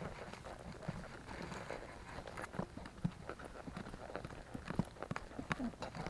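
Hoofbeats of a ridden horse moving along a sandy road shoulder, a run of uneven clip-clops.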